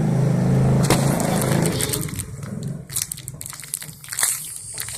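A motor vehicle's engine running steadily for about two seconds, then fading, followed by crinkling and clicking of plastic being handled.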